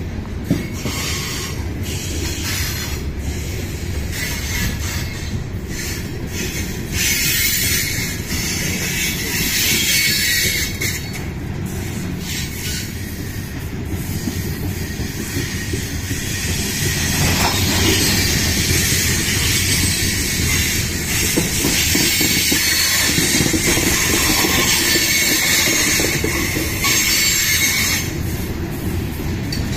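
Freight train of covered hopper cars rolling past at close range: a steady rumble of steel wheels on the rails with high-pitched wheel squeal over it, a little louder in the second half.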